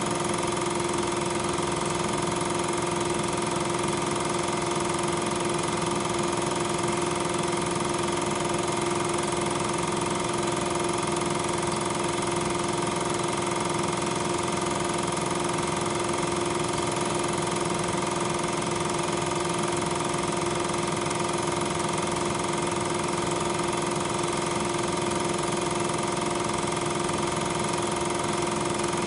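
Steady mechanical hum with several fixed tones over a hiss, unchanging throughout: running noise of the equipment used to transfer silent regular 8mm film, not sound from the locomotives on screen.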